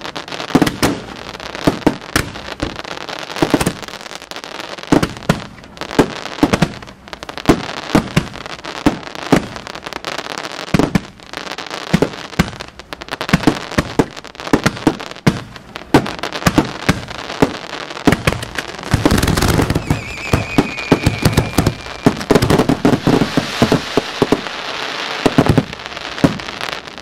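Aerial fireworks going off in quick succession: a dense, irregular string of sharp bangs and crackles from bursting shells and comets, with a heavier run of deep booms about nineteen seconds in and a thicker crackling barrage after it.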